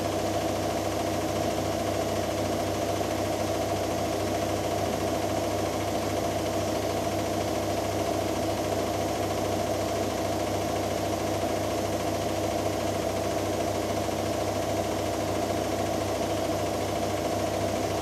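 Hoover Dynamic Next washing machine in its final spin on the Wool & Silk cycle: the drum turns at a constant speed, giving a steady motor hum and whine with no change in pitch.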